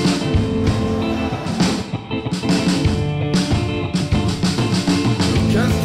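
Background rock music with guitar and drums keeping a steady beat.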